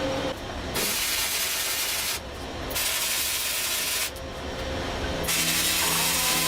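Long rasping strokes of a hand tool scraping across metal, about three strokes each lasting a second and a half, with short pauses between them.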